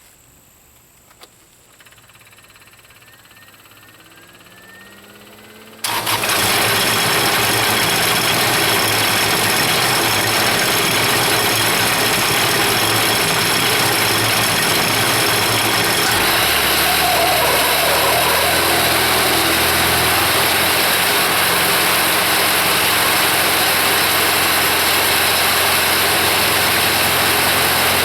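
Kubota V1305 four-cylinder diesel engine on a sawmill starting up: a faint rising whine, then the engine catches suddenly about six seconds in and runs steadily. Its low note drops and changes about ten seconds after it starts.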